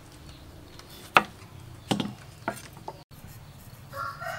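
Four sharp knocks from food preparation, about half a second to a second apart, the first the loudest. Near the end a rooster starts crowing.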